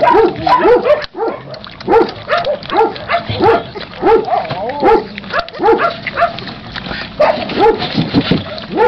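Puppies eating dry kibble from a metal bowl, giving short rising-and-falling cries about once or twice a second, with crunching and clicking of kibble between them.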